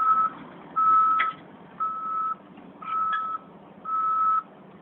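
Back-up alarm on a heavy vehicle beeping in one steady tone, about one beep a second, with each beep lasting about half a second.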